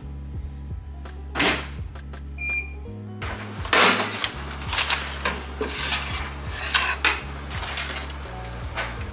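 Brown paper bag crinkling and rustling as bagels are pulled out of it, over background music with a steady bass line. A short electronic beep sounds about two and a half seconds in.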